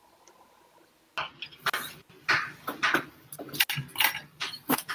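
Computer keyboard typing: a quick, irregular run of key clicks that starts about a second in.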